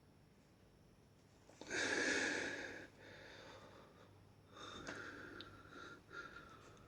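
A person breathing through the nose: one loud exhale about two seconds in, then fainter, slightly wheezy breaths near the end.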